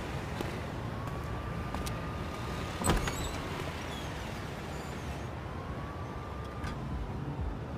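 Steady low rumble like road traffic, with a faint tone that slowly rises and falls a couple of times and one sharp click about three seconds in.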